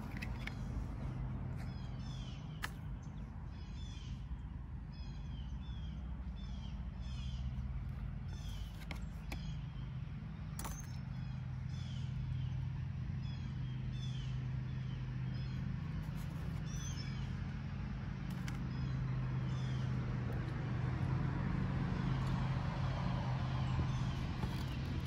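A bird chirping over a steady low hum, its short falling notes repeated every second or so, with a few sharp clicks.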